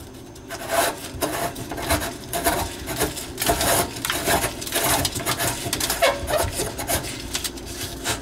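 Old kitchen sink strainer basket's large locknut, freshly loosened, being turned off its threads by a gloved hand: a run of irregular scraping, grating strokes, a few each second.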